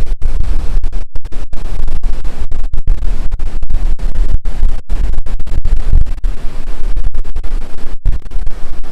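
Strong wind buffeting the microphone: loud, low rumbling noise that cuts out for an instant many times.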